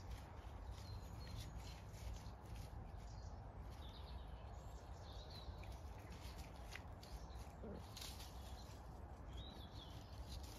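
Quiet outdoor ambience: a steady low rumble with a few faint, short bird chirps scattered through.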